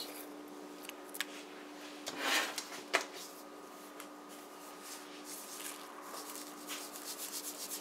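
Faint kitchen handling sounds: a couple of light clicks and a short soft rustle, with faint small ticks near the end, over a low steady hum.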